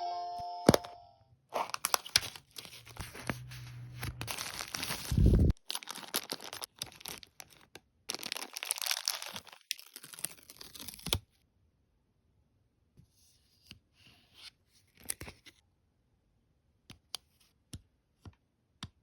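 Thin plastic wrapping of a capsule toy being torn open and crinkled in the hands for about ten seconds, then a few light clicks and taps as the pieces are handled.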